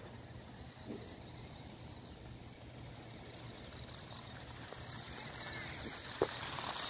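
Faint sound of a LEGO Technic RC car running over snow: a steady low hum and hiss that grows louder near the end as the car comes close, with one sharp click about six seconds in.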